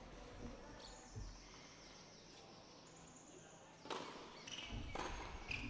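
Tennis ball struck hard by a racket on a serve about four seconds in, followed by a second sharp ball impact about a second later, over faint open-air court ambience.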